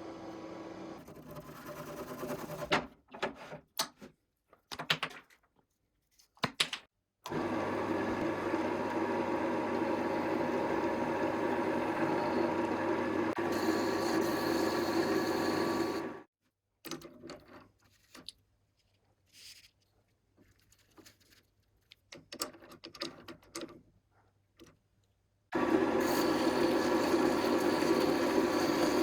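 Wood lathe running steadily in two long stretches. Between them come scattered short knocks and clicks.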